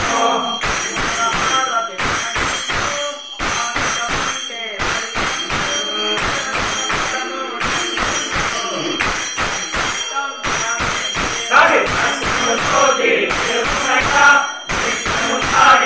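A group of men singing a devotional Ayyappa bhajan together, keeping time with small hand cymbals clashed in a fast, steady beat.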